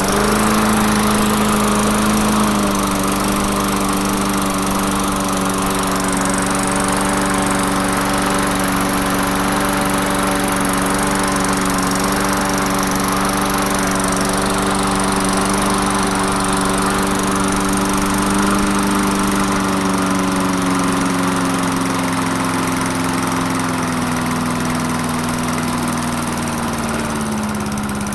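Old Craftsman push mower's single-cylinder Tecumseh engine running steadily at speed just after starting. Its pitch settles slightly lower a couple of seconds in and sags a little again near the end. The engine is still cold, which the owner says it doesn't like.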